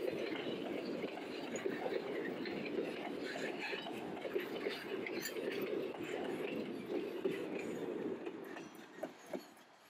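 Loaded freight train's boxcars rolling past on the rails, a steady rumble and rattle of wheels and cars with many small clicks. It drops away about eight seconds in as the last car passes, leaving a few scattered clicks.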